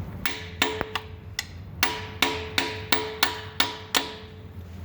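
Hammer blows on a metal tool, about eleven sharp strikes at roughly three a second with a short metallic ring after each, as a connecting rod seized onto the crankshaft is being knocked loose.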